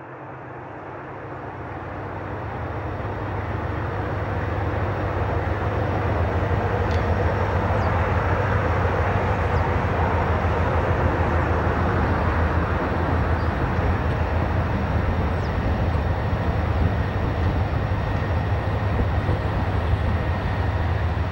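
Diesel freight locomotives, an Alco C420 leading a set of EMD units, running and rolling past with their train. The sound grows louder over the first few seconds as the train approaches, then holds steady with a constant low engine hum.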